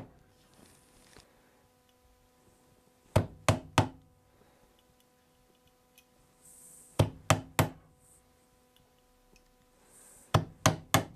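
A magnetic upholstery tack hammer driving tacks through burlap into a wooden chair seat rail: three groups of three quick taps, about four seconds apart. Faint rustling of the burlap between the groups.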